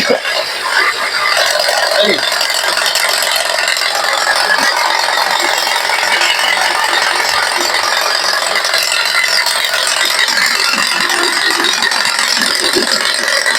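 Mercedes-Benz GLC 250's engine idling in Drive with a steady, rapid mechanical rattle, a 'tac, tac, tac', from the belt-driven accessories. The noise comes on when the car is put in gear or the air conditioning is switched on, and is traced to a worn alternator one-way (ratchet) pulley and a worn AC compressor pulley bearing.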